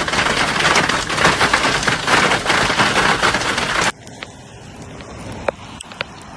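Hail or heavy rain pelting a hard surface in a dense, crackling rush of rapid impacts, cutting off abruptly about four seconds in; after that a quiet background with a few faint clicks.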